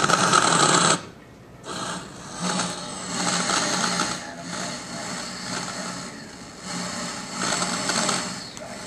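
Analog TV speaker hissing with static on a weak UHF channel, with a low hum underneath. The hiss is loud for the first second, drops suddenly, then keeps swelling and fading as the signal comes in and out.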